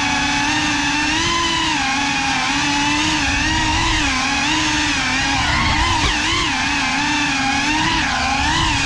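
GEPRC Cinelog 35 cinewhoop drone in flight: its four brushless motors and ducted propellers make a steady, loud whine whose pitch wavers up and down as the throttle changes. It is heard up close from the camera mounted on the drone.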